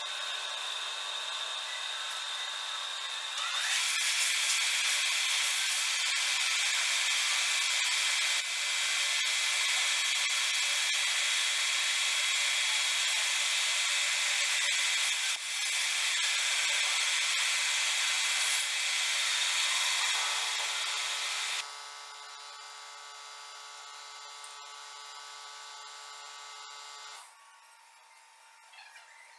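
Metal lathe turning a metal workpiece: the spindle runs with a steady whine while the cutting tool takes a cut with a loud steady hiss, which starts about three seconds in. About twenty seconds in the cutting noise stops and a quieter steady machine hum remains, dropping lower again near the end.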